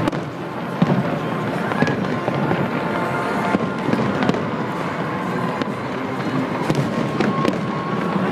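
Aerial fireworks going off continuously: a dense stream of crackles and pops, with a few sharper bangs standing out.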